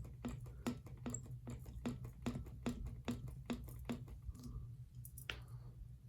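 Light clicking about two or three times a second, thinning to a few scattered clicks near the end: a ceiling fan part knocking in its loose play as it is wiggled by hand, checked as the cause of the fan's noise.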